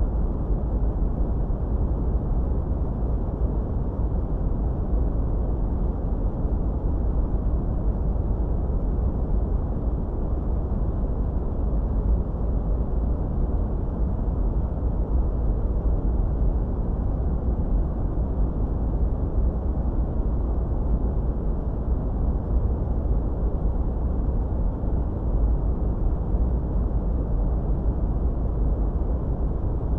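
Steady, deep white-noise track, filtered dark so that almost nothing is heard in the treble, with no change in level or character.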